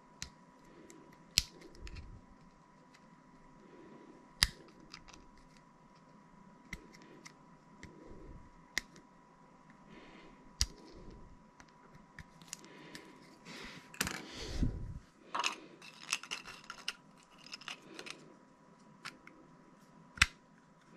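3D-printed PLA plastic parts being handled and pressed together by hand: sharp clicks and taps scattered through, with a denser stretch of rustling and clicking about two-thirds of the way in.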